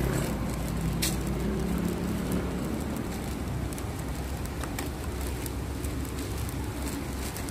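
Steady low rumble of road traffic, with a passing vehicle fading out over the first couple of seconds and a few faint clicks.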